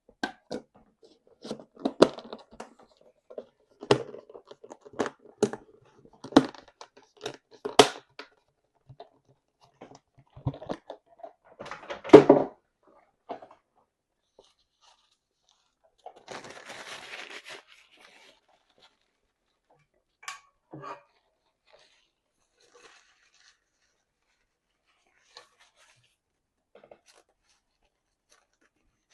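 Close-miked mukbang eating of meat and guacamole: a run of sharp mouth clicks and smacks over the first eight seconds. A louder, thicker sound about twelve seconds in, a short rustle around seventeen seconds, and a few faint clicks after that.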